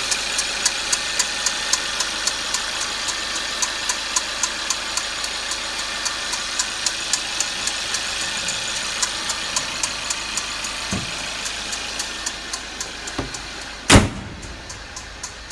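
Mercedes-Benz W204 C-Class engine running with an evenly spaced ticking of about four ticks a second, an abnormal noise that appears only while the engine is cold. The ticking slowly fades, and a single loud thump comes near the end.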